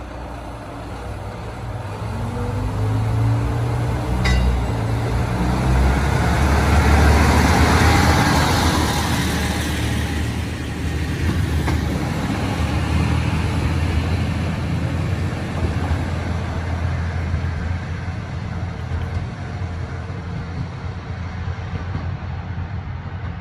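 KiHa 37100 diesel railcar pulling away: its engine revs up with rising pitch, grows loudest as the railcar passes close by, then fades steadily as it runs off down the line.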